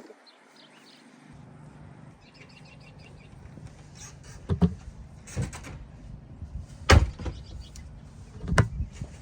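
Four loud knocks or thumps about a second apart over a low steady rumble that starts about a second in, with birds chirping.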